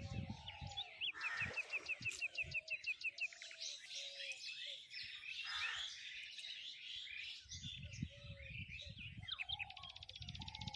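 Several wild birds singing and calling together, with one bird giving a fast, even run of repeated chirps about a second in and softer low notes underneath. A low, uneven rumble comes in over the last few seconds.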